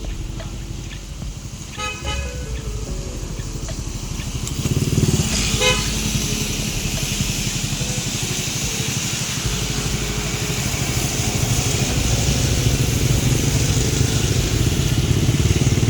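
Busy street traffic in the rain: low engine noise from passing vehicles, with a horn sounding briefly twice, about 2 s in and again near 6 s. A steady hiss of rain gets louder from about 5 s in.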